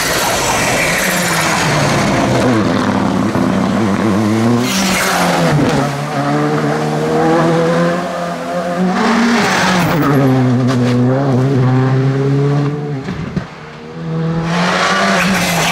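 Rally cars driven hard on a stage, one after another: engines revving high and dropping back through gear changes, over tyre and gravel noise. The sound changes abruptly a few times as one car gives way to the next, with a brief drop in level about thirteen seconds in.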